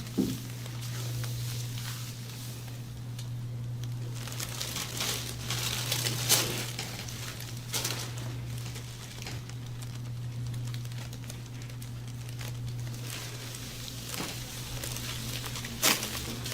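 Crinkling and rustling of hands working over a patient during a massage, over a steady low hum, with a few sharp clicks, the loudest about six seconds in and just before the end.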